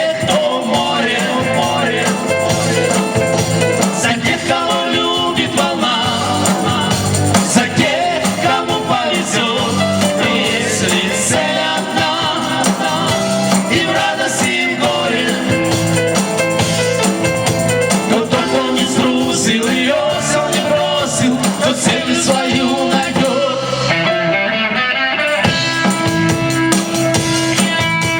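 A band playing a pop-rock song with a steady beat.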